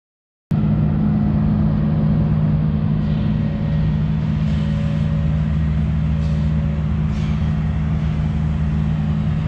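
Honda Africa Twin motorcycle engine idling steadily. It cuts in abruptly about half a second in.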